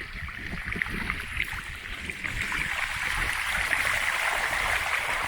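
Bicycle wheels rolling through a flooded road, with water swishing and splashing around the tyres. The sound grows a little louder partway through.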